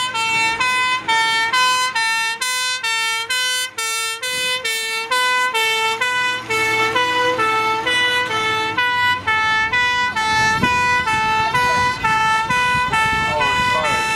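Fire engine's two-tone siren sounding steadily, switching between a high and a low note about three times every two seconds.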